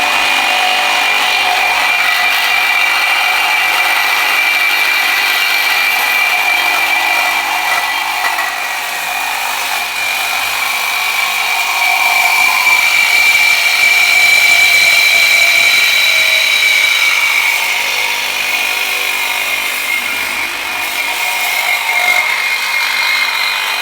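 Metabo HPT reciprocating saw with a Diablo Amped Steel Demon blade cutting through a steel tube in one long continuous cut: the motor and blade stroke run steadily, with a high steady squeal of the teeth on the metal.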